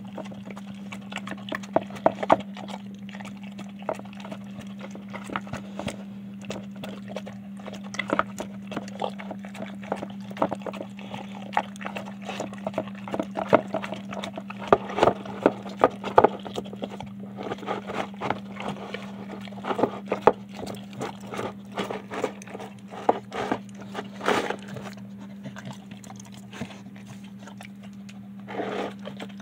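A dog eating a soft chicken-and-rice meal from a plastic bowl: irregular wet smacks, licks and clicks of mouth and teeth against the bowl.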